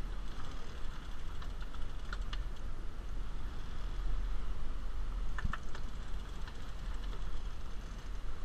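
Charter boat's engine idling with a steady low rumble under wind and water noise, while a fishing reel is cranked against a hooked fish, giving a few short sharp clicks about two seconds in and again about five and a half seconds in.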